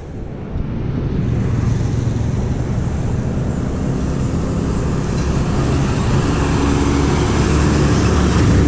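Roadside traffic: the steady hum of vehicle engines and tyres on the road, with a heavier vehicle such as a truck passing in the second half.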